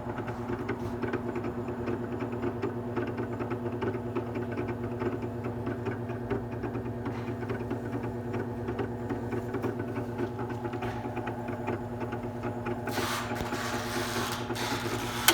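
Small engine of a Hitachi GK21S2 running steadily at idle just after starting, with a rhythmic mechanical chatter. It turns noisier near the end and finishes with a sharp knock.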